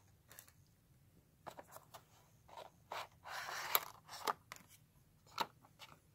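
Faint handling of a thin clear plastic blister pack: scattered light clicks and crackles, with a longer crinkle about three and a half seconds in.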